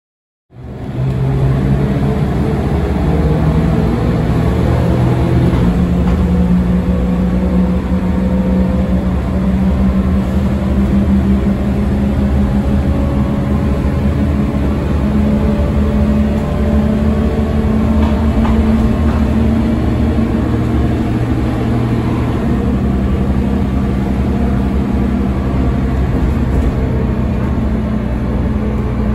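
Volvo B9M-55 engine of a Volvo B9M city bus running under way, heard from inside the passenger saloon, its note stepping up and down in pitch several times, with a faint slowly rising whine in the middle.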